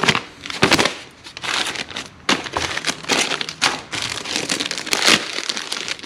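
Paper instruction sheet and plastic bags from a hydraulic cylinder seal kit crinkling as they are handled, with irregular crackles throughout.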